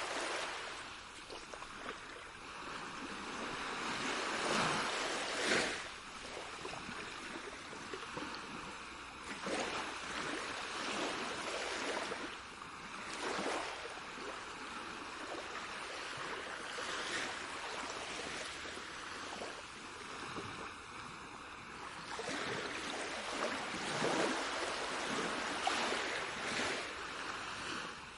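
Sea waves washing ashore, a rushing hiss that swells and eases every few seconds.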